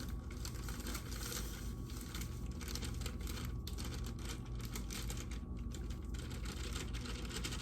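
Dry cake mix being emptied out of its plastic bag, the bag crinkling steadily with many small crackles.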